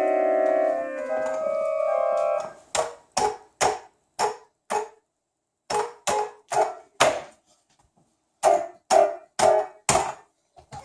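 A keyboard instrument played unevenly. A held chord shifts notes twice, then about fourteen single notes are struck one at a time in uneven bunches, each dying away quickly.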